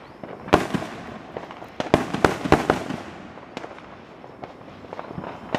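Fireworks exploding: a sharp bang about half a second in, a quick run of bangs and pops around two to three seconds in, then a few fainter pops.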